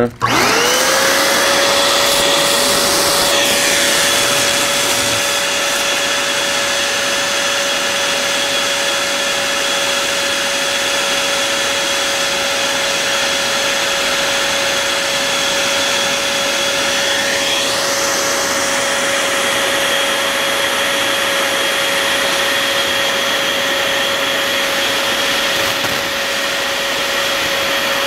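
Electric foil-balloon air inflator (a Foil Pro) filling a foil balloon: the motor starts with a quick rising whine, then runs at a steady pitch with a constant rush of air.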